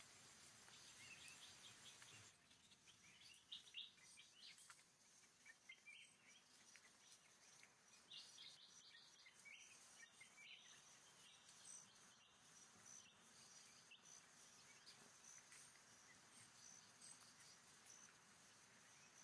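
Faint forest ambience: scattered short bird chirps over a steady, high insect buzz.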